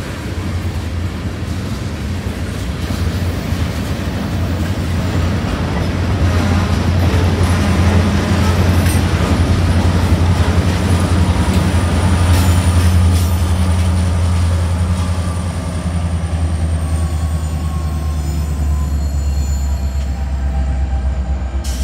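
Freight train cars rolling past: a steady low rumble of wheels on rail, with a thin high wheel squeal through the middle stretch.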